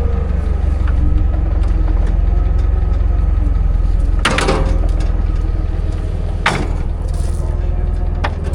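A wooden pallet cracking and crunching under the weight of a forage harvester's corn head, two loud cracks about four and six and a half seconds in, over the steady running of a heavy machine's engine.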